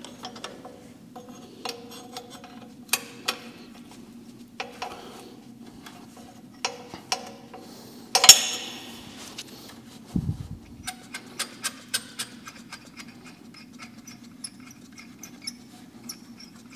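Socket wrench on an extension loosening the 12 mm exhaust header bolts of a Yamaha XSR900: scattered metal clicks and clinks, with one loud ringing metal clank about eight seconds in, a dull thump just after, and a quick run of clicks after that.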